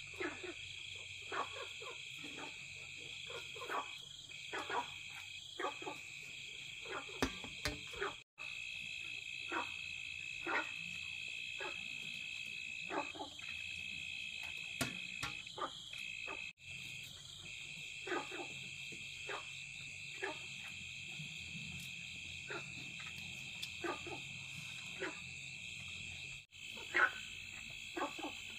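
Insects keeping up a steady, high, unbroken chorus, with frogs giving short calls every second or so. The whole chorus cuts out for an instant three times.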